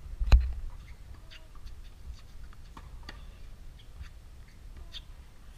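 Tennis racket striking the ball once, a sharp crack about a third of a second in. Faint scattered ticks and taps follow.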